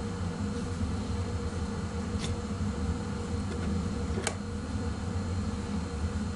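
Steady low hum with two faint clicks, about two and four seconds in, from small metal engine parts being handled and fitted together by hand.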